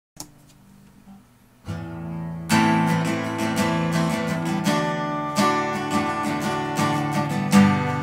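Acoustic guitar intro: after a faint start, a chord rings out a little under two seconds in, then steady rhythmic strumming begins about a second later.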